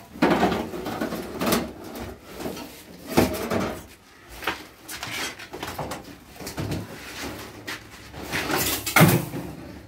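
A homemade wooden lever-driven machine being worked by hand: irregular wooden knocks, creaks and scrapes, with the loudest scrape near the end.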